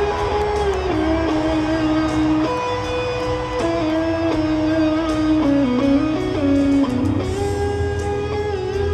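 Live rock band playing a slow ballad, led by a single-cutaway electric guitar playing a melodic lead line of held notes that bend and slide between pitches, over steady bass and drums.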